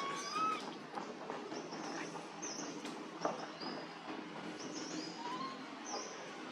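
Baby long-tailed macaque giving a high coo that rises and falls, once at the start and more faintly about five seconds in, with short high chirps repeating in the background.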